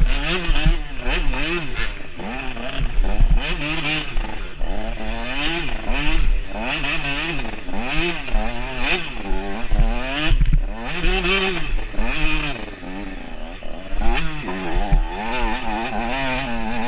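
Dirt bike engine heard from on the bike, revving up and falling back again and again as the throttle is worked over the bumps.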